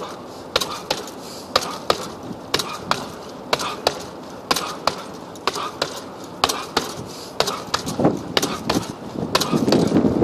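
Fists striking a hanging heavy punching bag: sharp slaps, often in quick combinations of two or three, about two to three blows a second.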